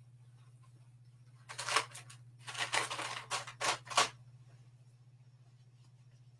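A cluster of short rustling, scraping handling noises, starting about a second and a half in and lasting around two and a half seconds, over a steady low hum.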